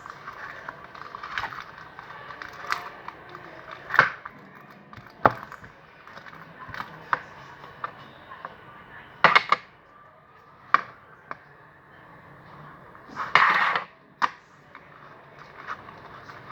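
Hands working a batch of homemade slime: irregular sticky clicks and pops, with two louder crackling bursts, one just after 9 seconds in and one near 13 seconds in.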